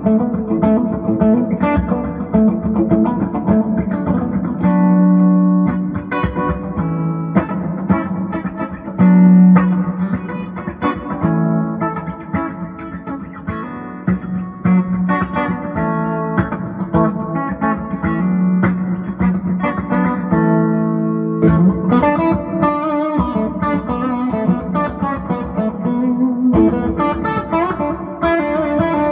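Hand-built double-cut Les Paul Junior-style electric guitar with a single Lollar P-90 pickup, played amplified: picked lead lines and held notes. There is a short gap about 21 seconds in, then a brighter, busier passage.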